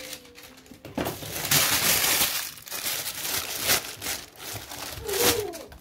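Sheet of baking paper (parchment) crinkling and rustling as it is spread over a leg of lamb in a glass baking dish and pressed down by hand, in irregular bursts from about a second in.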